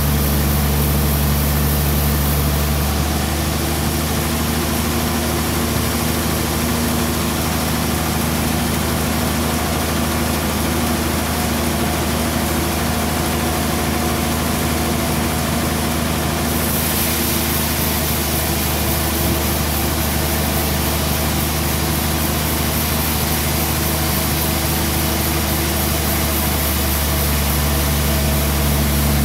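Sawmill band saw machinery running steadily: a loud, even, low machine drone.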